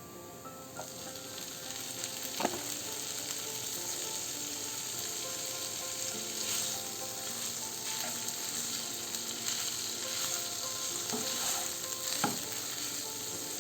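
Shredded chicken sizzling as it fries in oil with onion and garlic in a skillet, being stirred, with a few sharp clicks of the utensil against the pan about two and a half seconds in and twice near the end.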